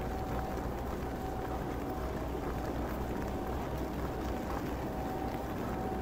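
Steady rain with city traffic: a continuous low rumble under an even hiss.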